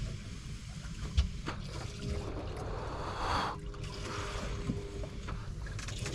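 Wind on the microphone and water against the hull of a fishing boat on open sea, with a single knock about a second in.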